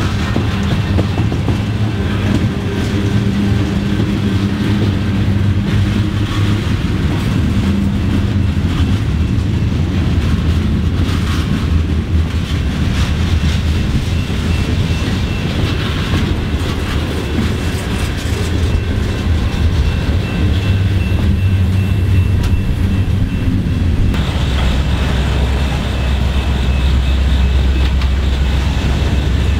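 Freight cars of a Norfolk Southern mixed freight train rolling past, a steady rumble of wheels on rail with some clicking over the joints. About 24 seconds in the sound changes abruptly to a deeper, steadier rumble.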